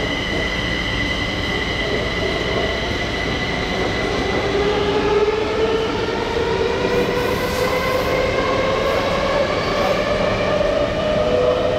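Kaohsiung MRT Red Line metro train heard from inside the car as it pulls out of a station. Steady running noise, with the traction motors' whine rising slowly in pitch as the train gathers speed.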